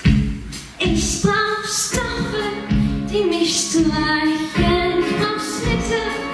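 A woman singing a musical-theatre song into a handheld microphone, over instrumental accompaniment.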